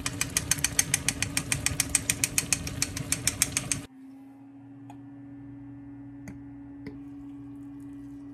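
Rapid metallic clicking, about seven a second, as a handheld mesh-ball flour duster is shaken to dust flour, over a steady low hum. The clicking cuts off abruptly about four seconds in, leaving the hum and a few faint clicks.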